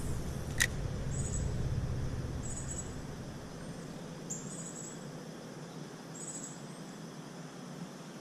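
Insects calling: short, high buzzes repeating about every second and a half. A single sharp click about half a second in, and a low rumble that dies away in the first few seconds.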